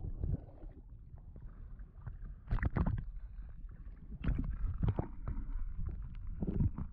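Muffled sound of shallow river water heard through an underwater camera: a low, steady churning rumble with several sharp knocks and clunks of stones and the hand moving among the rocks, the loudest about two and a half seconds in.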